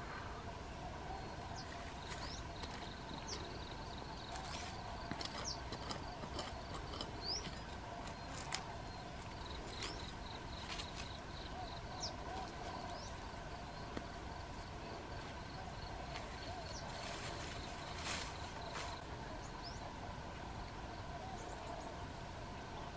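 Outdoor ambience of steady, droning insect trilling with scattered short bird chirps. Occasional rustles and steps of someone walking through dense brush.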